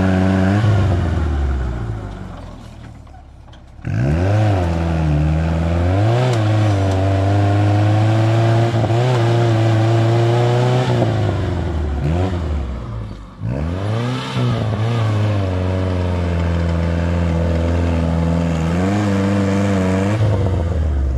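Jeep CJ engine revving hard under load as it crawls up a steep dirt slope. Revs rise and fall with the throttle: they die away about two seconds in, surge back suddenly near four seconds, dip briefly past the middle, then hold high and steady before easing off near the end.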